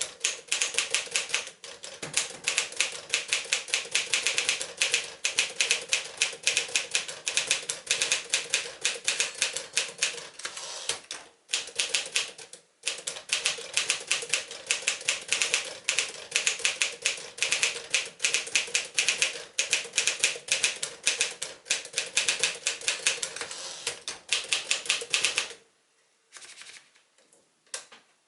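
1958 Smith-Corona Silent-Super portable manual typewriter being typed on quickly, a fast run of key strikes with a short break about twelve seconds in. The typing stops a few seconds before the end, leaving only a few faint clicks.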